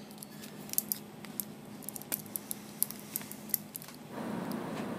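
Faint handling noise: a few small, irregular clicks and taps as a rubber band is stretched and wrapped around a plastic marker and a wooden clothespin, over a faint steady hum.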